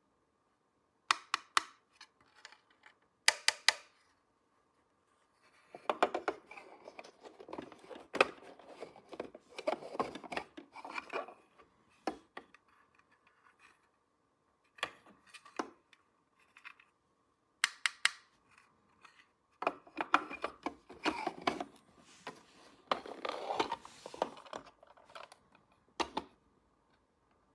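Small toy pieces being handled and set down. There are a few short clusters of sharp clicks and two longer stretches of rubbing, scraping and clattering.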